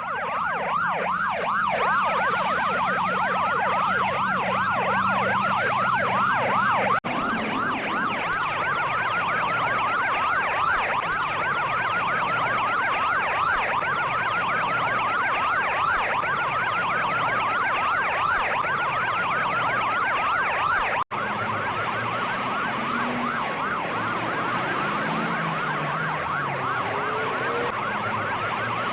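Police-car style siren sound effects: a rapid warbling siren sweeping up and down, played as three takes separated by short breaks about 7 and 21 seconds in. A low engine hum runs under the first take.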